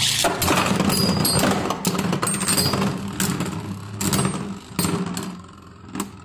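Two Beyblade Burst tops, Destruction Ifritor and Stone Nemesis, spinning and colliding in a plastic stadium: a steady whirr broken by many sharp clacks and brief high scrapes as they strike each other. The match ends in a burst, one top knocked apart.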